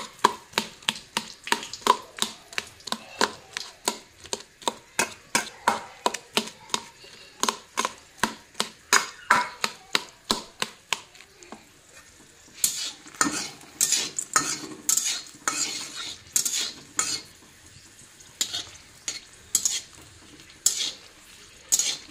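A metal ladle knocking and scraping against a steel bowl, about three knocks a second, as boiled potato and pumpkin are mashed. About halfway through this gives way to dried red chillies sizzling in hot oil in a wok, with the ladle clinking against the wok.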